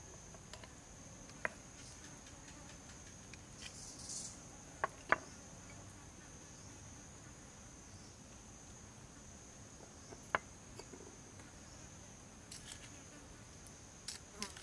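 Steady high-pitched insect chorus, with a few sharp clinks of a spoon against small ceramic dishes and a stone bowl, two of them close together about five seconds in, and light scraping near the end as seasoning is spooned over the beef.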